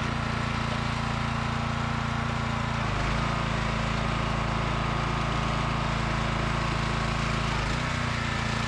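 A 2800 psi pressure washer's engine running steadily under the hiss of its water spray; the engine note shifts about three seconds in and shifts back near the end.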